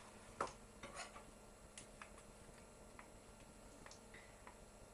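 Faint, scattered taps and clicks of a spatula against a mixing bowl while folding stiff egg whites into cornbread batter, the loudest tap about half a second in.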